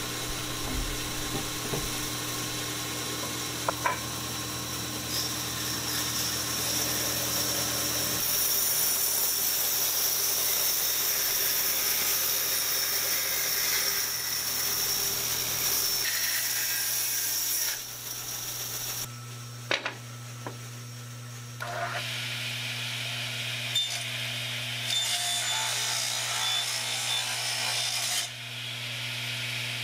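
Old 36-inch Oliver bandsaw running with a steady hum while its blade cuts through a thick wooden board, in several cuts that change abruptly. A few sharp knocks come about two-thirds of the way in.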